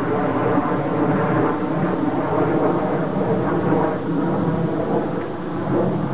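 Homemade mechanical bull's drive motor and mechanism running, a steady loud rumble as the bull swings and turns.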